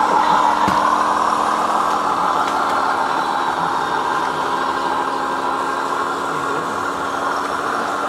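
Radio-controlled model tipper truck with trailer running slowly over gravel: a steady mechanical hum from its drive, easing a little in level over the seconds.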